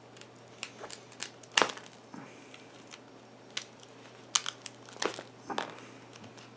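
Pliers gripping and prying at the hardened potting compound inside an LED bulb's plastic housing: irregular crunching and sharp cracks, the loudest about one and a half seconds in. The driver, set in the compound, is stuck fast and does not come loose.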